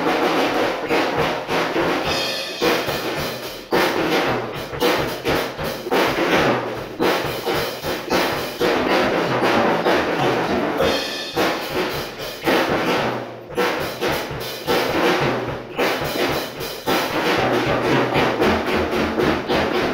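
Acoustic drum kit played freestyle: fast strikes on drums and cymbals with fills, with a few brief breaks in the playing.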